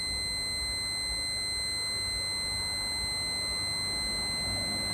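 Handheld breathalyzer giving a steady, unbroken high-pitched tone while the driver blows a continuous breath sample into its mouthpiece.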